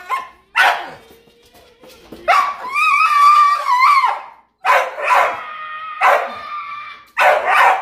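Dog vocalising in a run of calls: a short call, then one long wavering howl of nearly two seconds, then three shorter yowling barks.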